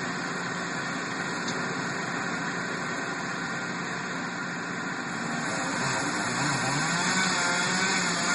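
An engine running steadily, its pitch starting to rise and fall unevenly over the last few seconds as it gets a little louder.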